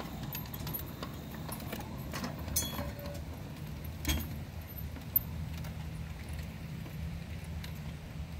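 Large-scale model railway freight cars rolling slowly over rail joints and a turnout, with scattered metallic clicks and clinks from wheels and couplers. There is a sharper clank about four seconds in and another just after five seconds.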